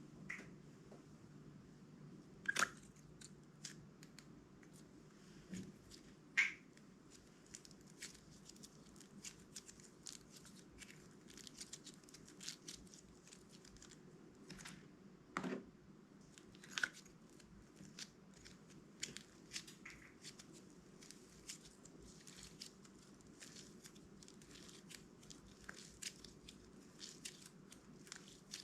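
Clear slime being worked by hand, with a steady run of faint sticky crackles and clicks and a few louder pops scattered through.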